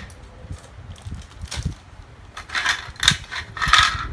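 Small plastic figure parts and their packaging being handled: rustling and light clattering that comes in three short bursts in the second half, with a few soft knocks.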